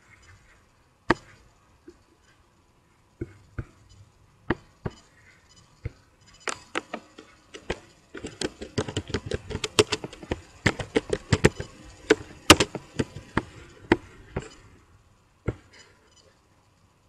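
Clicks of a computer keyboard and mouse: scattered single clicks, then a fast run of key clicks lasting about six seconds from about eight seconds in, then a couple of single clicks near the end.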